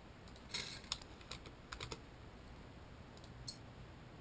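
Faint, scattered clicks of a computer keyboard and mouse: a quick run of clicks in the first two seconds and a couple more past the three-second mark.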